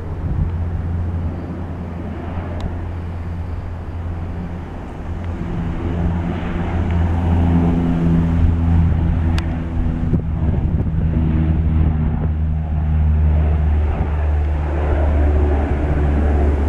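Canadair CL-415 water bomber's twin turboprop engines at high power as it scoops and lifts off the water: a steady low propeller drone that grows louder about five seconds in.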